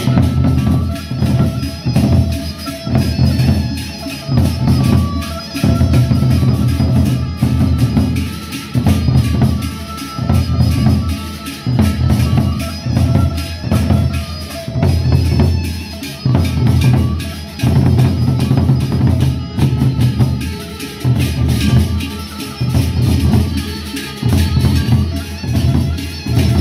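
Gendang beleq ensemble: large Sasak double-headed barrel drums beaten with sticks in a fast interlocking rhythm, in repeated loud phrases of low drum strokes.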